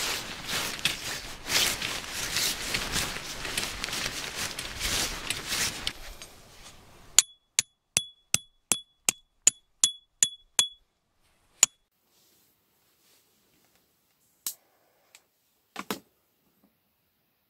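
Tent fabric rustling as it is handled. Then a metal camping hammer drives a tent peg with about ten quick blows, roughly three a second, each a sharp ringing clink of metal on metal.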